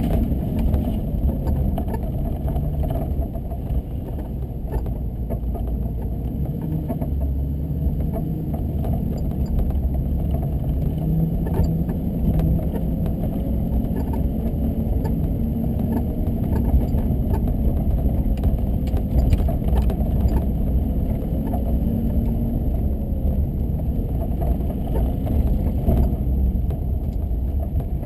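Car driving on snow-covered streets: a steady low rumble of engine and tyres, with faint engine tones that rise and fall a little and scattered small clicks.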